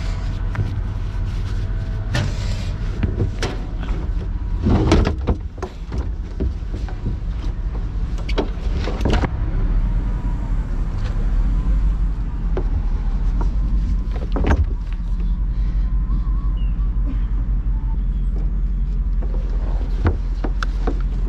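Bucket truck's engine running steadily while its hydraulic boom lifts the bucket, with a few knocks and clunks from the boom and bucket, the loudest about five seconds in.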